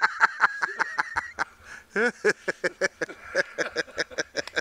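Small dogs yapping in a rapid run of short, high yips, several a second.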